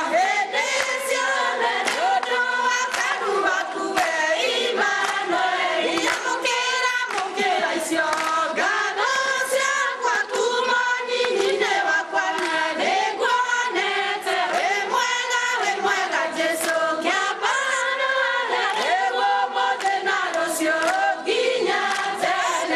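A large group of women and children singing together, with hand claps.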